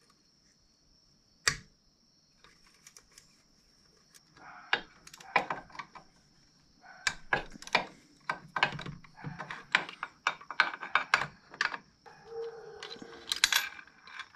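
Irregular metallic clicks and clinks of hand tools and loose engine parts as a piston and connecting rod are taken out of a small UTV engine on the bench. There is a single click about a second and a half in, then clusters of clicks from about four seconds in, over a faint steady high whine.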